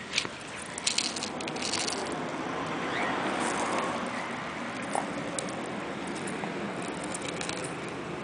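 Sulcata tortoise biting through a raw corn cob, the kernels crunching and popping in sharp cracks: a cluster in the first two seconds and a few more near the end. A steady hiss swells in the middle.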